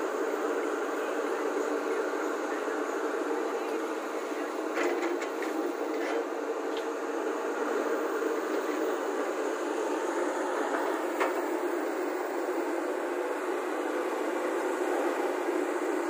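Volvo crawler excavator running steadily as it digs earth and swings loads into a tipper truck. A few brief knocks come about five to six seconds in and again near eleven seconds.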